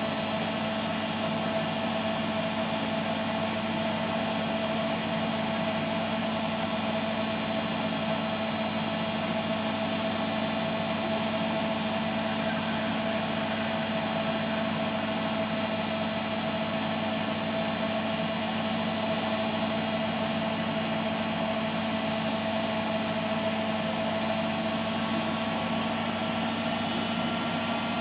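Beko Eco Care WMA 1510 W washing machine on its final spin, the drum and motor running at a constant high speed: a steady whine of several held pitches over an even rushing hum.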